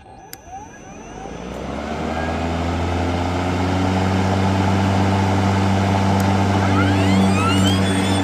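EGO 56V Select Cut battery lawn mower spinning up and running: a steady electric motor hum builds over the first couple of seconds, then holds. About seven seconds in, a higher whine rises in pitch and levels off.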